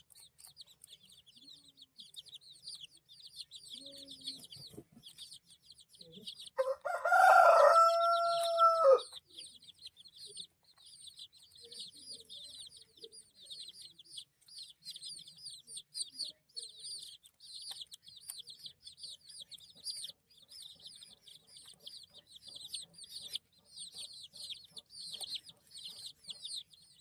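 A brood of baby chicks peeping continuously in quick, high chirps. About seven seconds in, one loud drawn-out crow of about two and a half seconds from a rooster rises over them.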